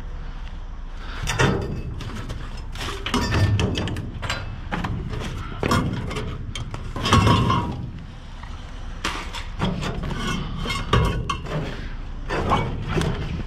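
Metal conduit pipes and other scrap clanking, clinking and rattling as they are shifted by hand inside a steel dumpster, in irregular knocks throughout.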